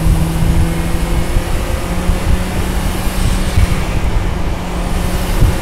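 Turbocharged Mazda Miata four-cylinder engine in an Exomotive Exocet, running under way at a steady cruise, heard from the open cockpit with heavy wind and road rumble. About a second and a half in the engine note drops out briefly, then returns a little higher in pitch.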